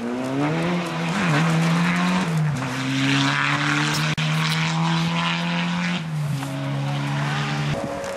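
SEAT León rally car engine at full throttle, its pitch climbing and then dropping in steps with each gear change as it passes. The sound cuts off suddenly near the end.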